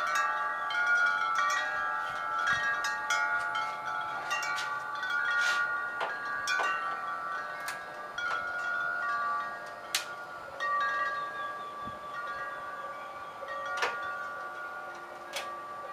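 Wind chimes ringing, many tones of different pitches overlapping and dying away, with a few sharp clicks scattered through.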